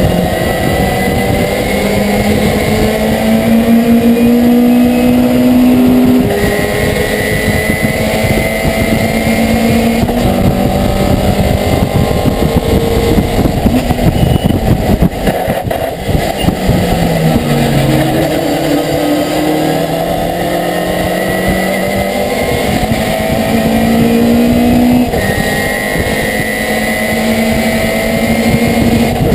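Race pickup truck's engine heard from inside the cab at racing speed, its pitch repeatedly climbing under acceleration and dropping sharply at each gear change. About halfway through the pitch falls steeply as it slows, then climbs again, over a constant heavy rumble of road and cab noise.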